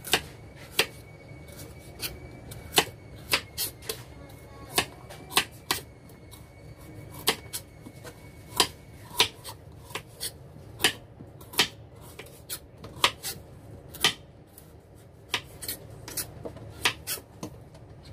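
Kitchen knife cutting the rind off a squash on a wooden cutting board: sharp irregular taps and knocks, about one to two a second, as the blade strikes the board.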